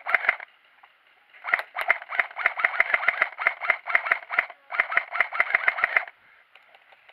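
Airsoft rifle fired on full auto in rapid strings of shots, about seven a second: a short burst at the start, then two longer strings, the last stopping about six seconds in.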